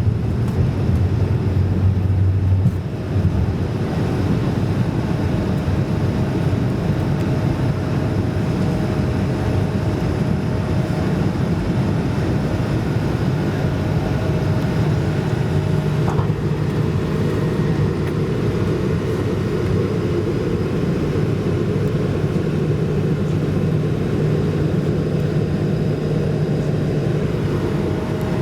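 Airbus A220-300 cabin noise: a steady rumble of engine and air noise with constant humming tones. A deeper low drone fades out about three seconds in.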